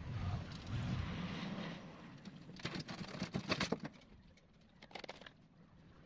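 Prismacolor colored pencil scratching across drawing paper in shading strokes, with a quick run of sharper scratches about two and a half to four seconds in.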